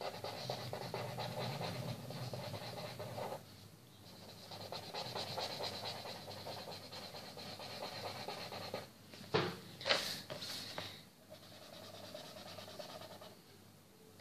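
Felt-tip marker scratching across paper as it colours in quickly, with a short break about three and a half seconds in and two sharp taps near the middle.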